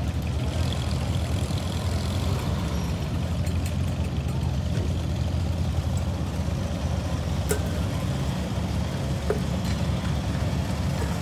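Tractor engine running steadily at an even, low speed, with faint voices in the background.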